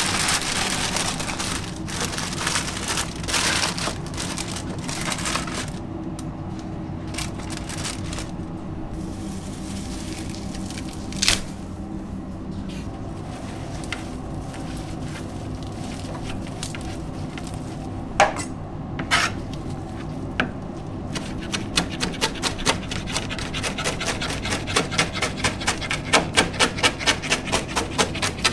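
Checkered paper crinkling and rustling as it is handled for the first several seconds, then softer rustling of parsley leaves being picked, with a few sharp knocks. About two-thirds of the way in, a chef's knife starts chopping parsley on a cutting board in a fast, even rhythm.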